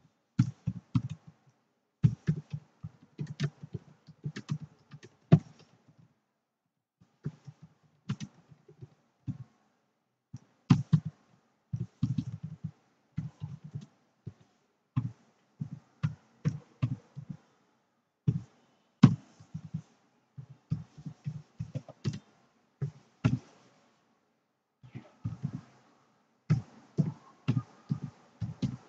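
Computer keyboard typing: runs of quick key strokes with a couple of short pauses.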